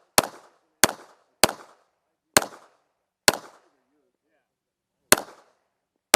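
Pistol shots during a timed action pistol stage: about six shots, mostly in quick succession roughly every half second to second, then a pause of nearly two seconds before the last. Each shot is followed by a short echo.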